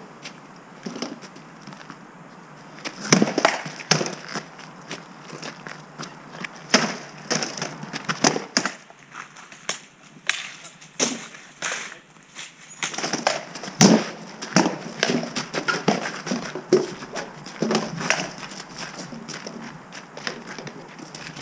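Armoured sparring: weapons striking round shields, helmets and each other in irregular flurries of sharp knocks, with short quieter pauses between exchanges and one especially loud blow about fourteen seconds in.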